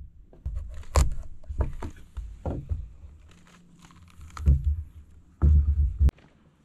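An acorn squash being cut and pried into halves on a wooden table: a series of knocks, thuds and cracks, the heaviest about a second in and near the end as the halves come apart.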